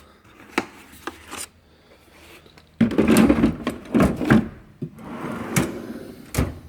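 Steel drawers of a Matco 6S tool box being shut and pulled open. A few light clicks come first, then just under three seconds in a drawer rolls out loudly on its slides. A second, quieter slide follows, with two sharp knocks near the end.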